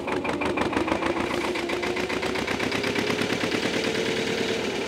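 Air-cooled Lister diesel engine of a narrowboat running with a rapid, even firing beat, its note rising slightly as the engine works to bring the boat to a halt.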